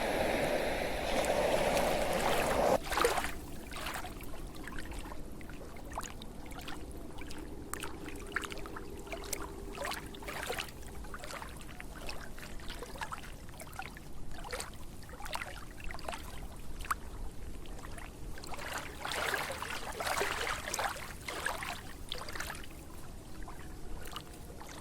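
Water: a loud rushing wash of waves that cuts off about three seconds in, giving way to water trickling with many small irregular drips and splashes, busiest near the end.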